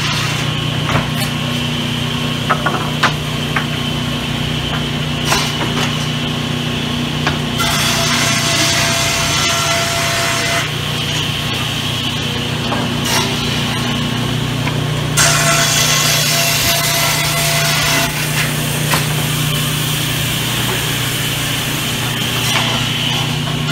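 Sawmill saw running with a steady motor hum, cutting through timber twice with a louder hiss, about a third of the way in and again past the middle. Scattered sharp knocks of wooden boards being handled.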